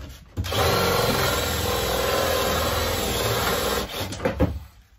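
Cordless drill boring a concealed-hinge cup hole into a wooden cupboard door, running steadily from about half a second in and stopping a little before the end; this is a last bit of deepening so the hinge cup sits level with the wood. A few light knocks follow as the drill stops.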